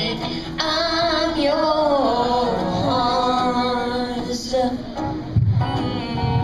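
A child singing a pop song through a microphone and PA over recorded backing music, drawing out a long line with wavering, sliding pitch; the voice stops about five seconds in, leaving the backing music.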